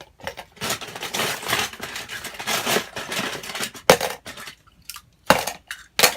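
Small toys clattering: a rattling jumble of clicks and clinks as pieces are handled, then three separate sharp clacks in the last couple of seconds.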